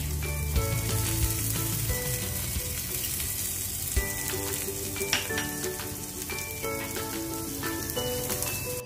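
Onion, ginger and garlic sizzling as they sauté in hot butter in a pan, with a few clicks of the utensil as they are stirred. Light background music plays along.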